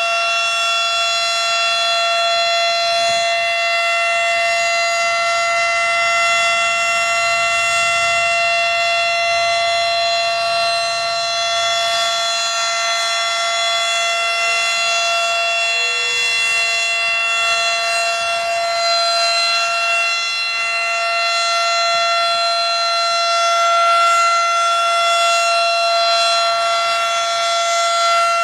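Federal Signal Model 5 electromechanical outdoor warning siren sounding a loud, steady tone at full speed, its several pitches held together without rising or falling, during a siren test.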